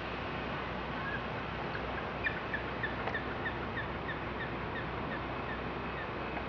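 A gull calling, a quick series of short, slightly falling notes, about three a second, over a steady background hiss.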